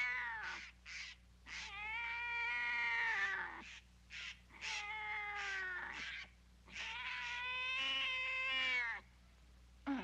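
Cats caterwauling: a string of long, wavering yowls, several lasting a second or two and sliding down in pitch as they end, with short cries between.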